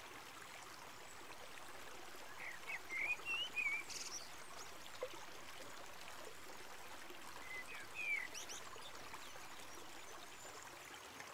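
The Erlauf river running fast over its stony bed, a steady rush of water. A small bird chirps a short phrase of several rising and falling notes about two seconds in, and again about eight seconds in.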